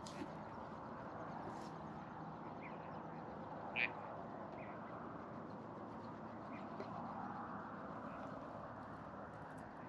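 Ducks calling on the water, a few short quacks over a steady background rumble; the loudest call comes about four seconds in.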